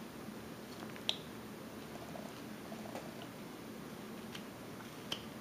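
Short sharp snicks of a whittling knife cutting small chips from a wooden carving, three of them, the loudest about a second in, over faint steady background noise.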